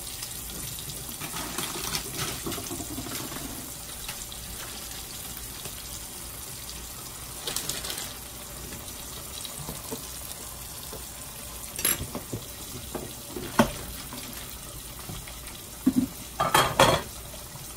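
Pork chops frying in a pan with a steady sizzle, broken by occasional clicks of metal tongs. Near the end come a few louder clatters and rustles.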